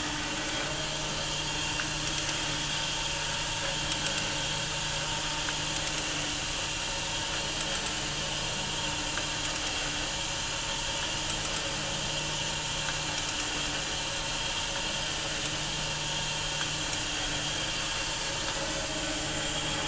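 Jakobsen SJ30 surface grinder running: a steady motor hum and high whine over an even hiss, with a few light ticks.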